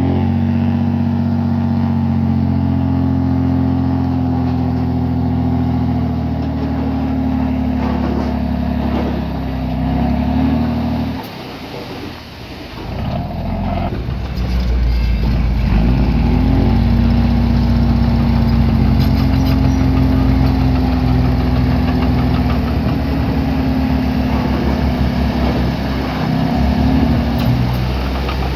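Diesel engine of a piece of earthmoving equipment working under load. It revs up and holds steady for about ten seconds, drops back briefly around the middle, then revs up and runs hard again before easing off near the end.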